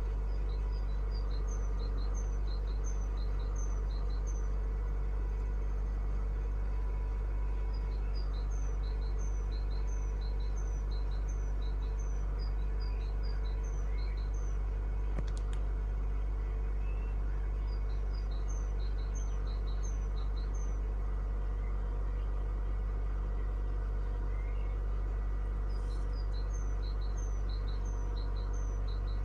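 Mazda Premacy 1.8 four-cylinder petrol engine idling steadily. A bird sings over it in bouts of quick repeated chirps every several seconds.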